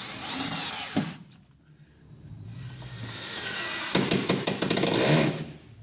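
A hand-held cordless driver running against fuel-line hardware under a car. It is loudest in the second half, with a dense rattle of clicks.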